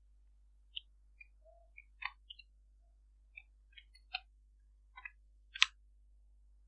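Computer keyboard typing: faint, irregular keystroke clicks, the sharpest about five and a half seconds in.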